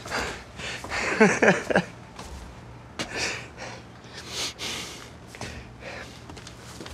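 A man's voice: a short wordless vocal sound about a second in, then a few breathy snorts and exhalations through the nose, like quiet chuckling to himself.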